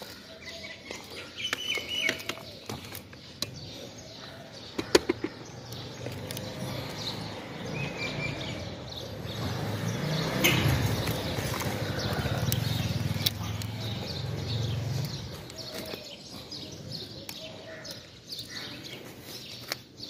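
Birds chirping, with scattered clicks and knocks as a fusion splicer and an aluminium ladder are handled. A low rumble swells about nine seconds in and fades some six seconds later.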